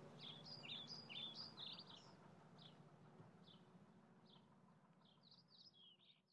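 Faint bird chirps: short, high, falling notes in quick clusters in the first two seconds and again near the end, with a faint low hum beneath.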